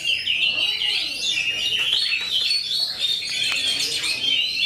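Oriental magpie-robins (kacer) singing continuously, several birds' fast whistled phrases overlapping in a dense chorus of rising and falling notes.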